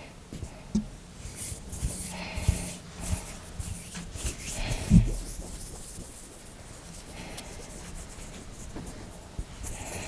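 Hands rubbing close to the microphone, a run of dry hissing friction strokes with a few soft low thumps, easing off to fainter rustles and light ticks about halfway through.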